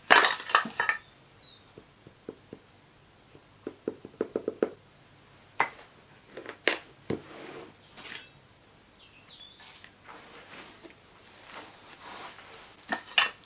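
Metal hand tools clinking as they are put down, a quick run of light taps, and a few knocks from a wooden sand-casting moulding flask being handled and stood on its edge.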